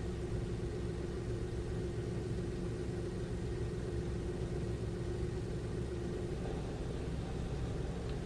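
Ship's engine running steadily, with a steady humming tone over it that stops about six seconds in.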